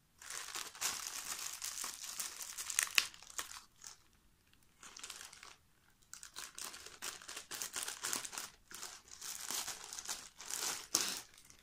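Parcel packaging being crinkled and torn open by hand, in stretches of rustling with two short pauses around the middle.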